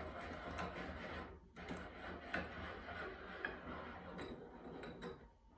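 Faint small clicks and scraping of screws and metal parts being handled and fitted by hand, as aluminium quench plates are fastened to a small bench vise, over a low steady hum.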